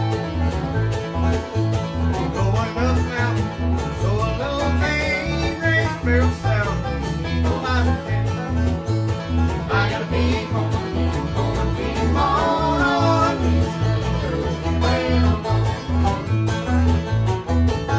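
Bluegrass band playing an up-tempo tune on fiddle, banjo, mandolin and acoustic guitar over a steady, evenly pulsing bass.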